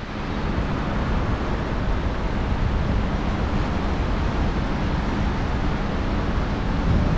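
Airflow rushing over the microphone of a paraglider pilot's camera in flight: steady wind noise.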